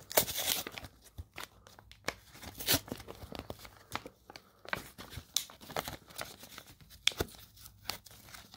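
Wrapper of a Pokémon trading card pack being crinkled and torn by hand in irregular small rips and rustles as the fingers pick at a stubborn seam.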